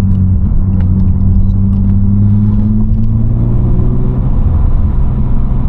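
BMW E36 325i's M50B25 straight-six running through a Supersprint race exhaust, a steady low drone heard from inside the cabin with the window down. The pitch rises slightly, then eases off about three seconds in.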